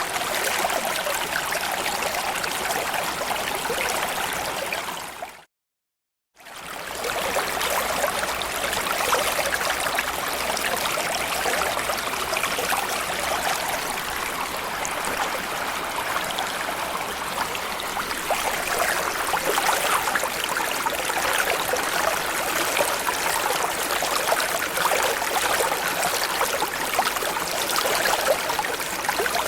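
Small stream or creek flowing steadily, water rushing and burbling over stones. About five seconds in it fades out to silence for under a second and then fades back in.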